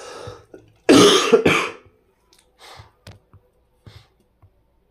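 A person coughs about a second in, two quick harsh bursts with a breath just before them, followed by a few faint clicks.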